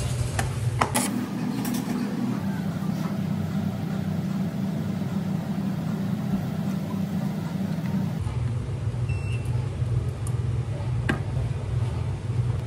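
Gelato dispensing machine running with a steady motor hum as it extrudes gelato onto a waffle; the hum drops lower about eight seconds in. A couple of light clicks.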